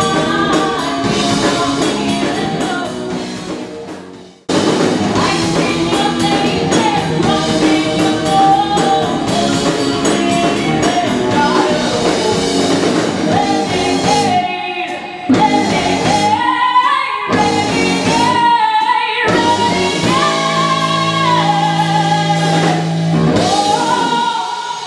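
Live rock band with a female lead singer over electric guitar, bass and drum kit. The band cuts out suddenly about four seconds in and comes straight back in, then plays a run of short stop-start hits before holding a long sustained chord with the voice over it near the end.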